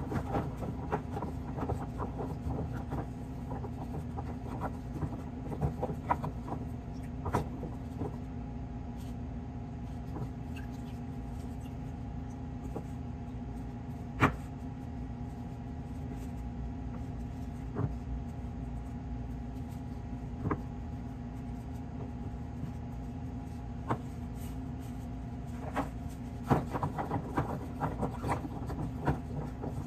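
A steady low hum runs throughout, with scattered light taps and clicks as ladyfinger biscuits are dipped in a plastic tub of coffee and set down in a stainless steel pan. One sharper tap comes about halfway, and the taps bunch together near the end.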